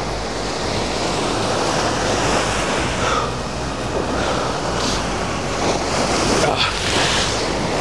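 Waves surging and breaking against the rocks of a stone jetty, a steady wash of surf, with wind noise on the microphone.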